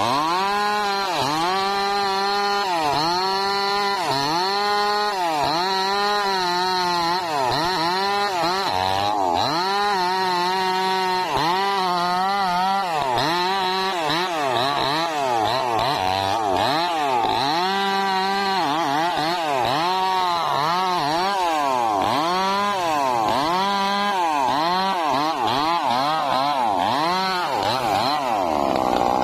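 Maestro two-stroke chainsaw cutting through a sengon log, its engine pitch rising and falling over and over, about once a second, under the load of the cut.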